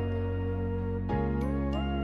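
Background music: a gentle instrumental with sustained chords that change about a second in, under a soft gliding melody.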